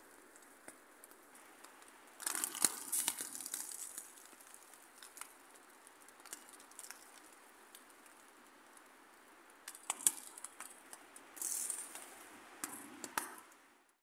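Lightweight lavvu tent's fabric crinkling and rattling in gusts of storm wind, over a steady faint hiss. The gusts come about two seconds in for a couple of seconds, sharply around ten seconds, and again near the end.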